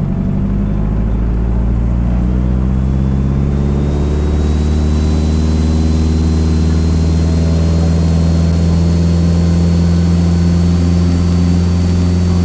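Mooney single-engine piston airplane at full takeoff power on its takeoff roll: a loud, steady engine-and-propeller drone whose pitch creeps up over the first few seconds as the plane accelerates, then holds, with a faint high whine rising alongside.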